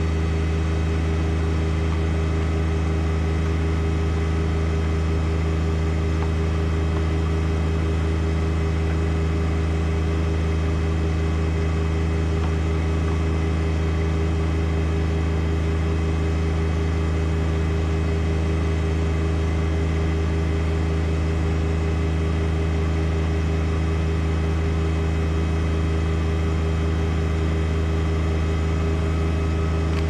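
John Deere 1025R compact tractor's three-cylinder diesel engine running at a steady throttle, a constant low hum with no change in speed.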